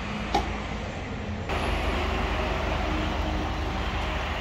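Steady vehicle and traffic noise with a low rumble, stepping up louder about a second and a half in. A single short knock comes near the start.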